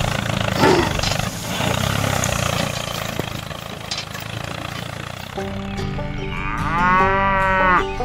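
A mini model tractor's small motor runs with a steady hum for about five seconds. Then cheerful music starts, and over it comes a long call-like sound effect that rises and then falls in pitch.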